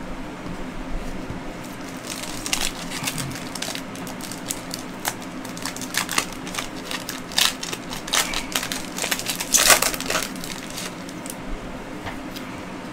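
Foil trading-card pack wrapper being torn open and crinkled by hand: a run of sharp, irregular crackles that is densest between about two and eleven seconds in.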